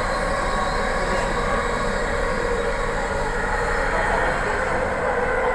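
Steady running noise of a passenger train, heard from inside the carriage as it travels at an even speed.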